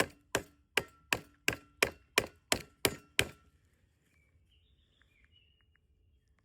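A rapid series of about ten hard blows, roughly three a second, with a faint metallic ring between them: the Denfintech rifle light-laser combo being beaten in a durability torture test.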